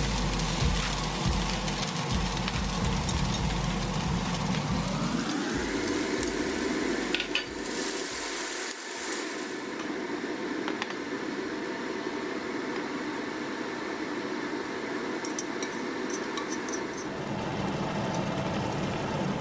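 Food sizzling in a hot wok as ingredients are tipped in and stirred, with light clinks of a utensil against the pan. Under it runs a steady whirring hum that rises in pitch about five seconds in and then holds.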